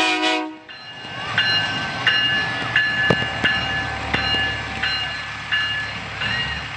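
A semi truck's air horn blast cutting off about half a second in, then the diesel engines of passing semi tractors rumbling steadily. A short high beep repeats about every half second over the rumble.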